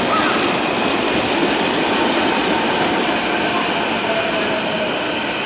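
Kobe Municipal Subway train running, a steady rumble of wheels on rail, with a faint motor tone that falls in pitch over the second half.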